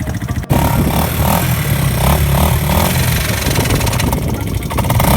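Off-road vehicle engine running and revving, its pitch rising and falling. The sound cuts in suddenly about half a second in.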